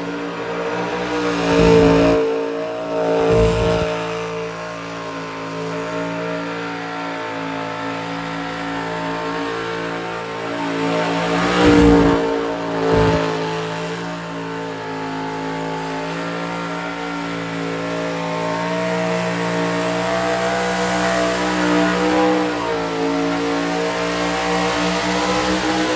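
Supercharged engine of a burnout pickup truck held at high revs through a long burnout, its rear tyres spinning against the pad. The engine note stays nearly steady, broken by two pairs of sudden loud surges, one about two seconds in and one about twelve seconds in.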